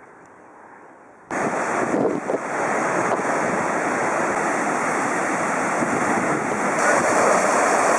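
The Alcantara River rushing and churning as white water through a narrow rock gorge. It is a loud, steady rush that cuts in suddenly about a second in, after a faint hiss.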